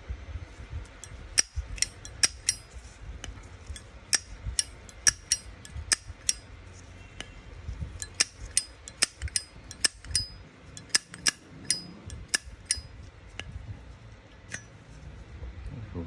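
A 1959–1963 Canadian-made Zippo lighter's hinged steel lid being flicked open and snapped shut again and again, each move a sharp metallic clink with a brief ring. The clinks come in two quick runs with a short pause around the middle, and thin out toward the end.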